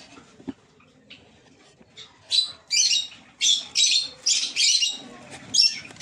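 Cockatiels giving a run of about seven short, harsh calls, roughly two a second, starting about two seconds in.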